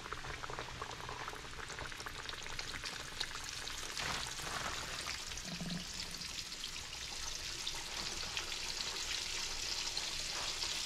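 Floured alligator meat deep-frying in hot oil in a cast-iron skillet: a steady crackling sizzle that grows a little louder in the second half as more pieces are dropped in.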